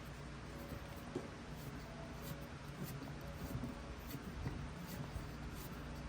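Faint small clicks and scratching of hands and a small tool working the wheel retainer nut onto an RC truck's axle, over a steady low hum.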